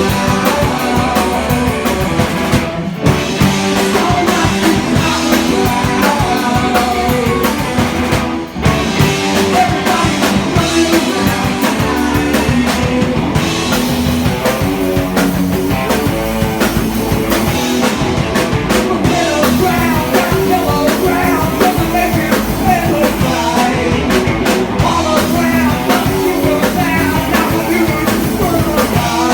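A live rock band playing loud on stage, with a drum kit driving a steady beat under electric guitar and bass, recorded on a phone in the crowd. The music drops out for a moment twice, about three seconds in and again near eight and a half seconds.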